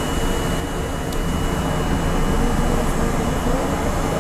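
New York City subway car running on elevated track into a station, a steady rumble of wheels on rail and traction motors heard from inside the front of the car, with a constant high-pitched whine throughout.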